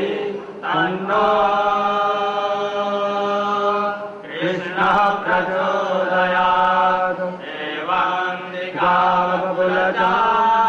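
Devotional Hindu chanting, a voice holding long sustained notes with short breaks between phrases, over a steady low drone.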